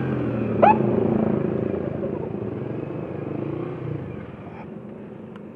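A vehicle engine running with a low hum that steadily fades away, with one short high chirp about half a second in.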